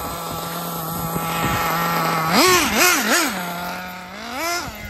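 Radio-controlled car's motor whining at a steady pitch, then three quick throttle blips that rise and fall about halfway through, and another rise and fall in pitch near the end.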